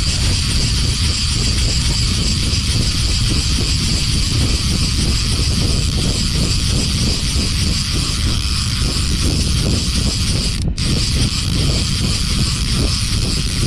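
Conventional saltwater reel being cranked steadily by hand, its gears whirring and clicking in a regular rhythm, over a loud steady rush of wind noise.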